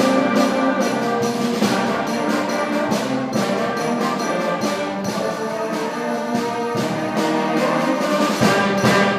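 Middle school concert band playing the closing bars of a piece: sustained brass chords over a steady percussion beat, with a last chord near the end that is cut off sharply.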